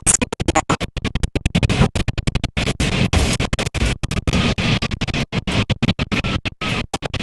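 Violent earthquake shaking picked up by a car dashcam: loud rattling and rumbling noise, chopped by many rapid, irregular dropouts.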